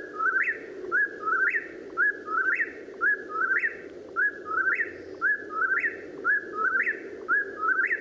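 Eastern whip-poor-will song: the bird repeats its own name, 'whip-poor-will', over and over, about one phrase a second, eight times, each phrase ending in an upward-sliding whistle.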